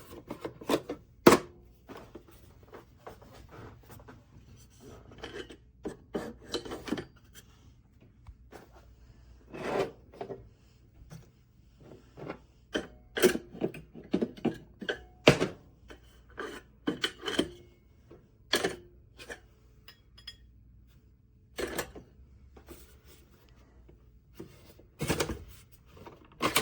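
Hard objects being handled: a long run of irregular clicks, knocks and rubbing, with sharper knocks about a second in and about fifteen seconds in.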